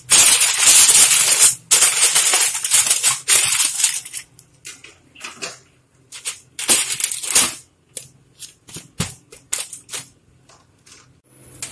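Aluminium foil crinkling loudly as it is pressed and folded over a cooking pot to seal it, easing after about four seconds into scattered crackles. Near the end a flat metal plate lid is set down on the foil with a light knock.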